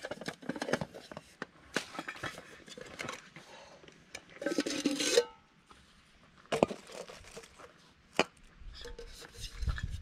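Metal backpacking cook pot and its lid being unpacked from a nylon stuff sack: fabric rustling and small clinks, a louder rustle about halfway through, and two sharp metal clinks in the second half.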